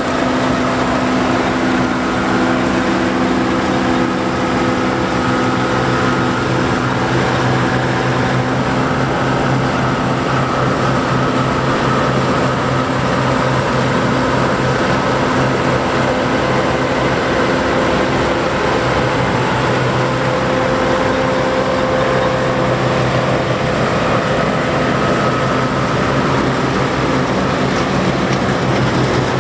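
John Deere 4425 combine harvester running while harvesting wheat, its 5.8-litre six-cylinder diesel engine and threshing machinery making a steady drone with a higher whine above it.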